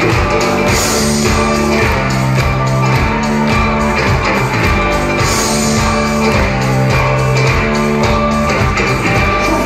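Live rock band playing loudly: electric guitar, bass guitar, drums and keyboards, with a steady drum beat under held guitar and bass notes.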